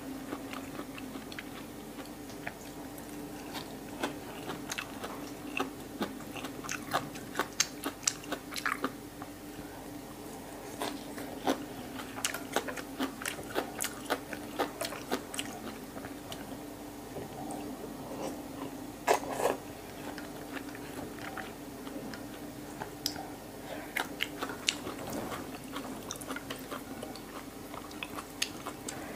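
A person chewing and biting raw beef liver and fresh herbs close to the microphone: many small wet crunches and mouth clicks, coming in clusters. A steady low hum runs underneath.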